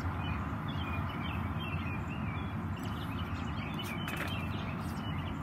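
Outdoor background noise: a steady low hum with a few faint bird chirps.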